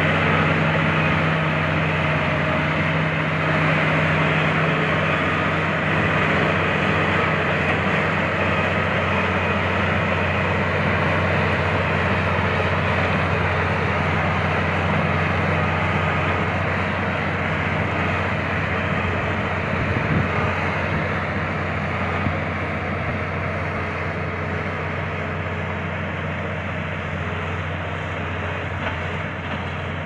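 LiuGong B160C crawler bulldozer's diesel engine running steadily under load as it pushes soil with its blade. The sound gradually fades as the dozer moves away.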